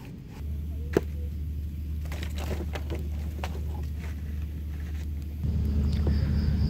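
Campfire being started: a steady low rumble with scattered crackles and snaps, the rumble getting louder about five seconds in.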